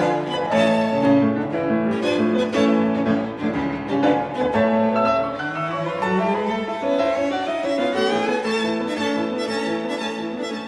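Background music: bowed strings, violin and cello, with some piano.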